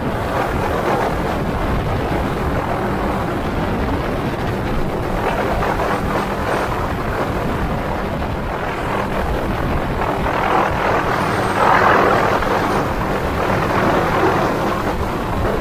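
MD 500D helicopter running steadily with turbine and rotor noise, swelling louder about twelve seconds in.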